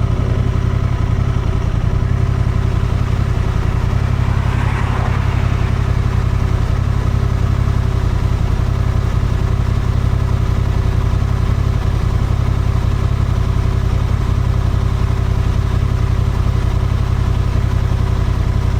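Honda Transalp 750's parallel-twin engine running at a steady cruise, heard through an action camera's onboard microphone. A brief rush of extra noise comes about five seconds in.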